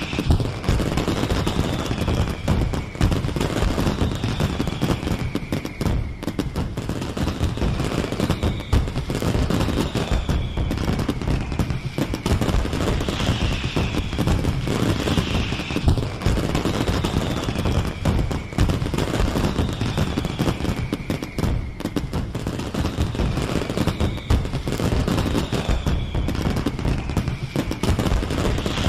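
Fireworks display: a dense, continuous barrage of crackling bangs and pops. A high falling whistle-like tone recurs about every second and a half.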